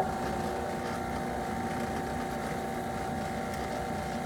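Skil benchtop drill press motor running steadily at a low speed setting, a constant whine over a hum, while the bit is fed down into a soft aluminium panel.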